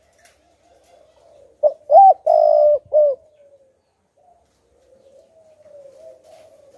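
Spotted dove cooing: one four-note phrase about a second and a half in. The third note is held longest and the last one falls away. Faint, low wavering cooing follows near the end.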